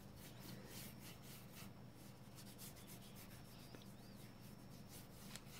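Faint scratchy rubbing of a nearly dry paintbrush scrubbing paint into a stretched canvas, in many short repeated strokes.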